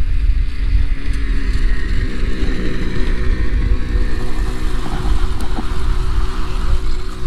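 Snowmobile engine running at a steady pitch, with a strong low rumble underneath.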